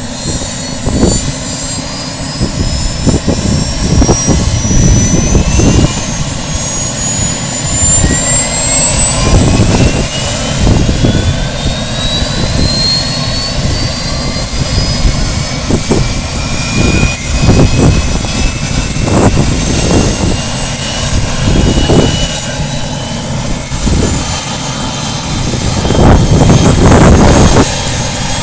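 Bell 206B JetRanger III helicopter's Allison 250 turboshaft spooling up on the ground. The turbine whine rises in pitch for about the first ten seconds, then holds steady and high, over a loud, uneven rumble from the engine and the turning main rotor.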